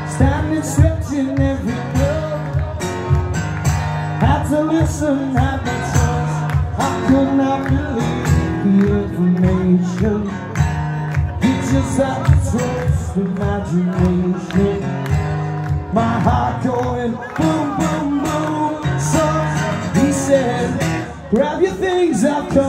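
Live acoustic guitar strummed steadily under a male voice singing, amplified through a PA.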